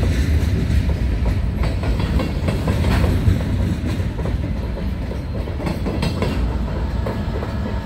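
Freight train of covered hopper cars rolling past close by: a steady rumble of steel wheels on the rails, with repeated clicks and clacks as the wheels cross rail joints.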